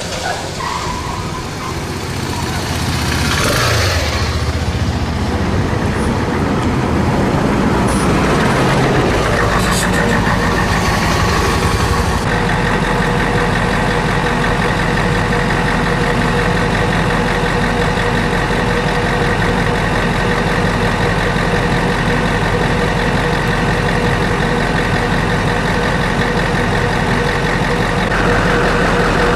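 A large vehicle's engine, most fitting a team bus, running as it arrives, then idling steadily from about twelve seconds in.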